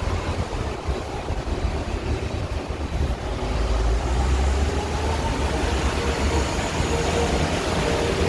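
Strong wind buffeting the microphone in a loud, gusty low rumble. A faint steady hum joins under it from about four seconds in.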